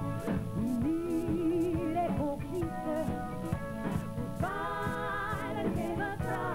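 Live band music with a singer: sung lines with vibrato over drums keeping a steady beat, and a long held note about four and a half seconds in.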